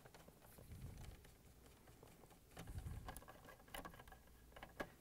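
Faint scratching and light clicks of a Phillips screwdriver turning screws out of a Samsung refrigerator's plastic water filter housing, in short spells with pauses between them.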